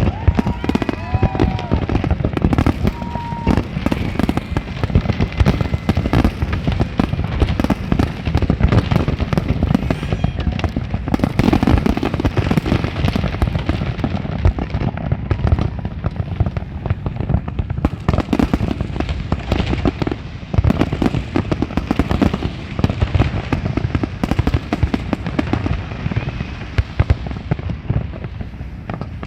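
Large fireworks display: a dense, unbroken barrage of booms and crackling bursts, many shells going off at once throughout.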